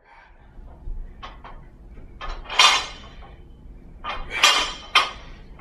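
Knocks and rattling from a barbell with kettlebells hung from its ends as it is lifted and lowered: a couple of short clacks about a second in, two louder, longer rattling bursts around the middle and near the end, and one sharp clack just before the end.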